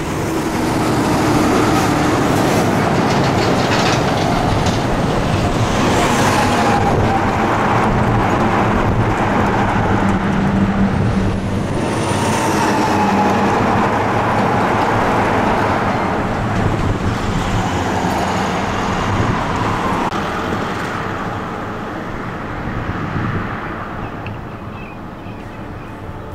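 Multi-trailer diesel road trains passing close at high speed: loud, steady engine and tyre noise, with the pitch dropping several times as the rigs go by. The noise fades over the last few seconds as they pull away.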